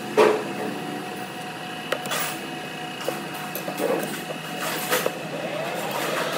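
Metal knocks and clanks as a steel bar is fitted into a lathe's three-jaw chuck, the loudest just at the start, over a steady machine hum. Near the end the lathe spindle starts turning.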